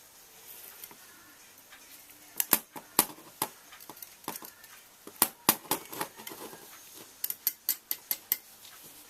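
Small metal hand tools and parts clicking and clinking against each other and the bench while an RC buggy's suspension is worked on: quiet at first, then a string of irregular sharp clicks from about two seconds in.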